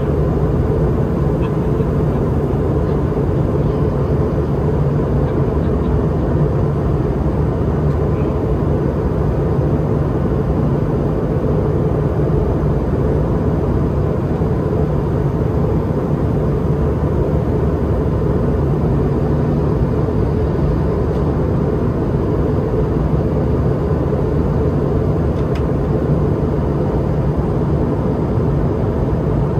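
Steady cabin noise inside a Boeing 717-200 on approach: the even drone of its rear-mounted Rolls-Royce BR715 turbofans and rushing airflow, heard from a window seat beside the engine, with a faint steady whine over the deep rumble.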